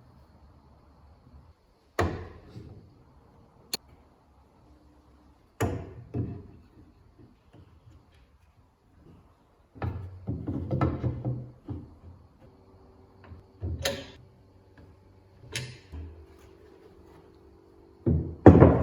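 A series of separate knocks and thuds a few seconds apart, with a longer rumbling clatter about ten seconds in and two quick hard knocks at the end.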